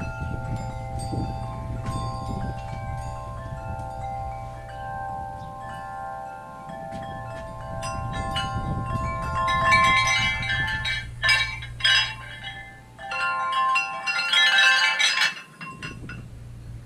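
Large tubular wind chime ringing, its several tubes holding overlapping tones. From about ten seconds in it clanks and rattles loudly as the tubes are grabbed by hand, and the ringing is damped away near the end.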